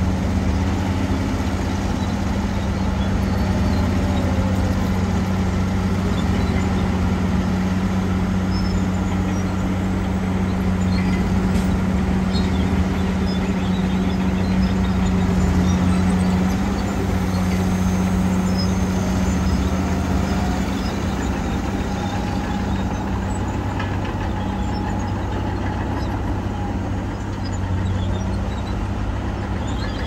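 Diesel engines of a tipper dump truck unloading dirt and an old Komatsu crawler bulldozer working beside it, running steadily with a constant low hum.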